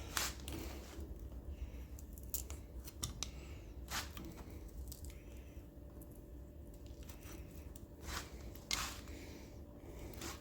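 A handful of sharp, irregular metallic clicks and snips of pliers crimping ribbon-type band clamps onto a CV joint boot, over a faint low hum.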